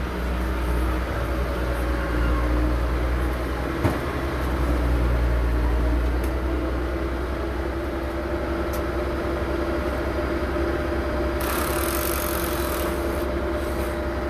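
Skid steer loader engine running steadily nearby, with a single sharp click about four seconds in and a brief burst of hiss near the end.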